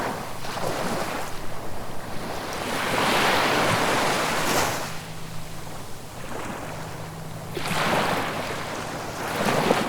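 Sea waves breaking and washing ashore in repeated surges: one swells about three seconds in, another around eight seconds, and a third just before the end, with quieter hissing wash between them.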